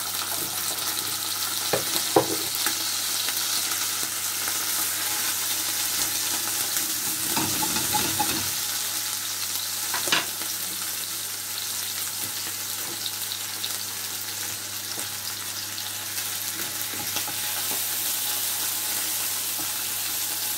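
Tuna steaks and sliced radishes sizzling steadily in oil and butter in a frying pan, with a few brief knocks from utensils.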